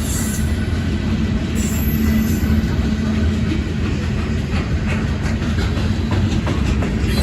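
Freight train rolling past, a steady low rumble of wheels on rail with a constant hum. Light clicks of wheels over the rail joints come through in the second half.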